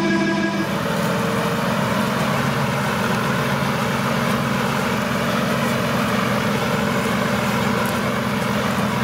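A steady engine hum at the very start gives way, under a second in, to the steady running of a Fendt Favorit 515C tractor's engine as it pulls a Meprozet slurry tanker. The engine sound is mixed with a constant rushing noise as slurry is spread.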